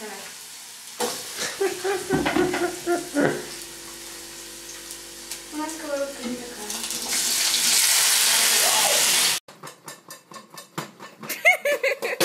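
Raw potato slices tipped into a frying pan of hot oil, which sizzles loudly for about two and a half seconds before cutting off abruptly. A voice is heard before the sizzling, and voices and laughter come after it.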